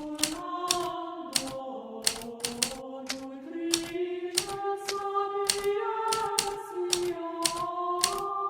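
Hermes Baby portable manual typewriter, its keys struck in a quick, uneven run of clacks, a few a second. Under it, background music of held, slowly changing chords.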